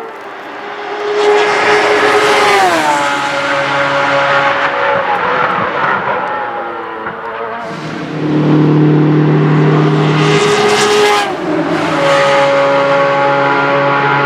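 Judd V8 engine of a Pescarolo 01 LMP1 prototype racing car running hard on track, its pitch stepping down and then levelling off a few times as the car changes gear and speed. It is loudest from about eight to eleven seconds in, then its pitch drops sharply.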